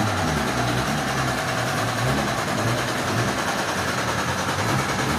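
A machine engine running steadily, with a constant hiss over its low, wavering hum.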